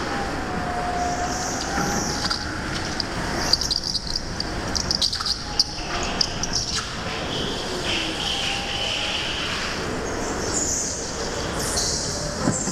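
Go-kart running at speed through the corners of an indoor track, heard from the kart itself as a steady noisy rumble. Short gliding squeals come from the tyres, and a run of sharp rattling knocks falls in the middle.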